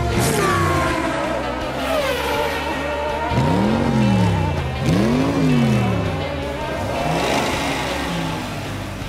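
Race-car engine sound effect revving, its pitch rising and falling, with two big swooping pass-bys in the middle, over background music.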